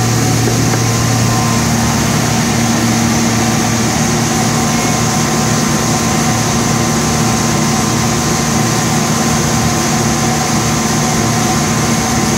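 Unique 2722 CNC machining center running between cuts, with its cutter spindles spinning free and not cutting wood. A steady hum with several constant tones over a hiss, unchanging throughout.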